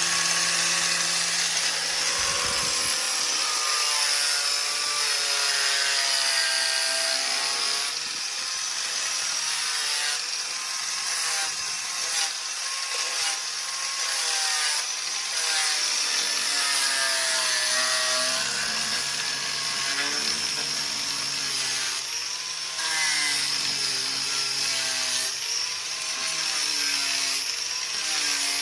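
Electric grinder running continuously, grinding dried body filler on a wooden chair down to an even level. Its pitch wavers up and down as the disc is pressed onto and eased off the work.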